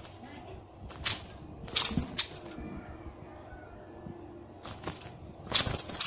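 Caged songbird giving short, sharp chip calls in brief clusters: one about a second in, a few around two seconds, and a louder flurry near the end.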